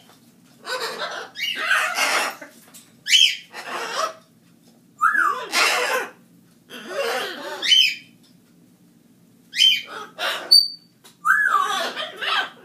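A parrot calling over and over: harsh squawks mixed with short whistled swoops, one burst every second or two, with a brief lull in the middle.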